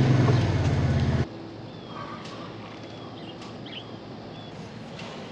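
A vehicle engine idling with a steady low hum, cut off suddenly about a second in. Then faint outdoor ambience follows, with a few brief bird chirps.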